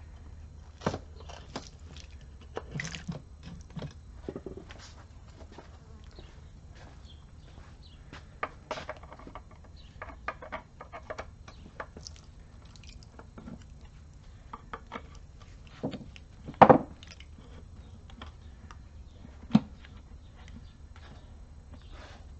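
Metal parts and hand tools clicking and knocking as the halves of an NP229 transfer case are worked apart, with many small scattered clicks. Two louder knocks come in the later part, about three seconds apart.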